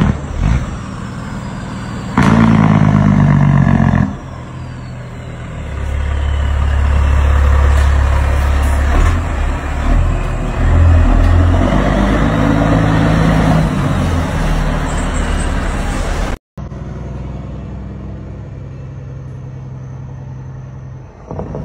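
A semi truck's engine compression brake (jake brake) firing as the truck comes down the road and passes. It is a deep, rapid rattling bark that comes in loud stretches, strongest about two seconds in and again from about six to fourteen seconds in. After a sudden cut, a steadier low truck engine drone follows.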